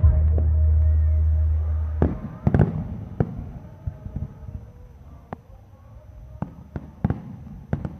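Aerial fireworks bursting in a scattered series of sharp bangs and pops, about ten of them, the strongest around two seconds in. A low steady rumble in the first couple of seconds fades away.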